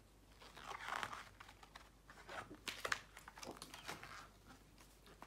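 Faint rustling and crinkling of a picture book's thick paper pages being handled and turned, with a longer rustle about a second in followed by several short light clicks and taps.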